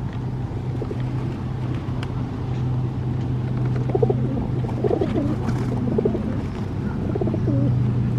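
Pigeons cooing, a series of wavering coos starting about halfway in, over a steady low engine hum.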